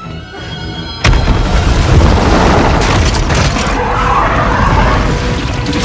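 Film sound effects: a sudden explosion boom about a second in, then a long, loud blast of shattering rock that carries on. An orchestral score plays underneath.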